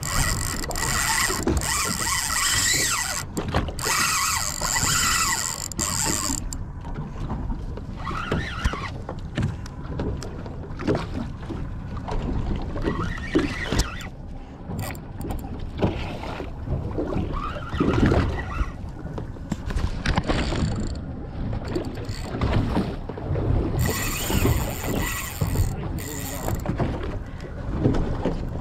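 Fishing reel working against a hooked dourado (mahi-mahi): a mechanical buzz of the reel, strongest over the first several seconds and again near the end, over steady wind and water noise around the boat.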